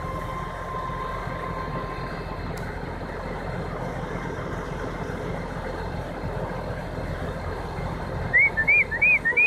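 Tow truck engine running steadily under load while its winch cable pulls a pickup up out of a ditch. Near the end comes a quick run of about five short, high, rising-and-falling chirps.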